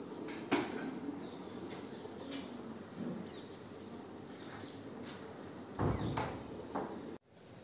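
Insects chirring steadily at a high pitch. A few knocks and thumps sound over it, the loudest about six seconds in.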